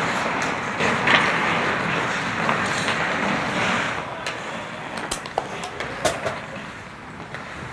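Hockey skates scraping and carving on rink ice, with sharp clacks scattered through the second half. The scraping grows quieter near the end.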